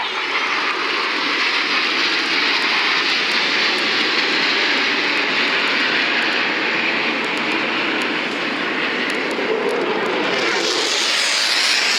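F-16 fighter jet engine noise from a flypast: a loud, steady rushing jet sound that grows brighter and sharper about ten seconds in.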